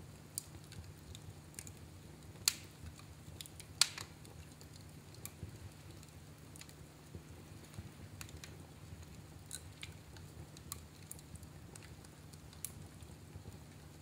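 Logs burning in a fireplace, crackling with scattered small pops and two sharp, louder pops in the first four seconds.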